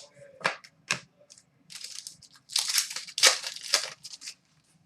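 Trading cards being handled and slid against one another. There are two sharp snaps about half a second apart near the start, then a longer stretch of scratchy card rustling in the middle.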